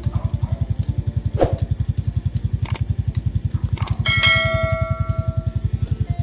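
End-screen subscribe-animation sound effects: a few short clicks, then a bell ding about four seconds in that rings on and fades over under two seconds. Underneath is a steady low pulse repeating about ten times a second.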